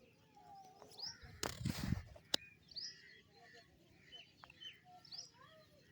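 Birds chirping repeatedly, short calls, some falling in pitch. About a second and a half in comes a brief loud rustling noise, followed by a single sharp click.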